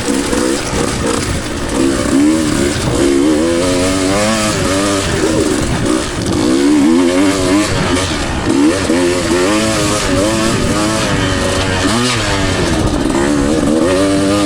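Two-stroke dirt bike engine revving up and down continually as it is ridden through the gears on a trail.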